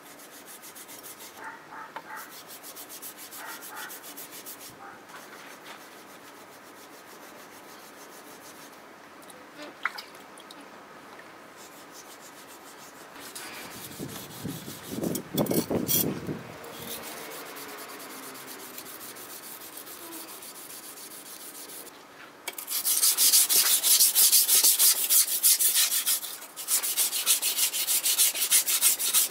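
Tosa-style kitchen knife blade scraped back and forth on a wet coarse #220 whetstone: a rhythmic rasping grind that starts loud about three-quarters of the way in, with one brief pause. Before that, only quiet handling sounds on the stone.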